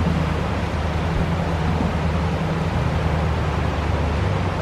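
Flash-flooded trout stream, the swollen water rushing steadily with a low rumble underneath.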